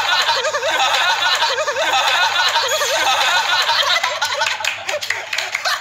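Men laughing in a long run of quick, repeated giggles.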